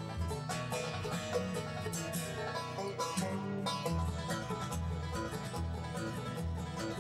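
Bluegrass band playing an instrumental passage with no singing: banjo picking over acoustic guitar, fiddle and upright bass.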